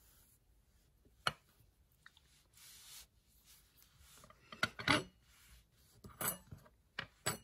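Hands handling and smoothing a Tunisian crochet yarn swatch on a wooden tabletop: soft rubbing and brushing of yarn against the wood, with a few short taps. The loudest rub comes about five seconds in.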